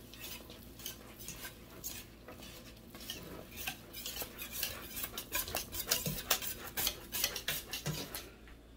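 Wire whisk clicking and scraping against the sides of a stainless steel pot while stirring thick polenta. The strokes come faster and louder in the second half and stop near the end.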